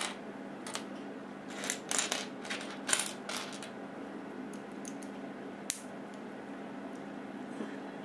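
Loose plastic Lego pieces clicking and clattering as a hand rummages through a pile of them on a table, with a quick run of clicks about two to three seconds in and a few single clicks elsewhere. A steady low hum lies underneath.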